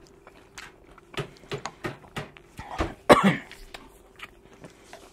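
A man coughing in a short burst about three seconds in while eating, amid small clicks of a spoon against a ceramic bowl. A faint steady hum runs underneath.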